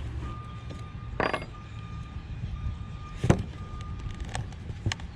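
Clicks and knocks of plastic and metal parts as the sanding belt is worked off a belt-sander attachment on an angle grinder: a few sharp handling sounds, the loudest about three seconds in, over a steady low rumble.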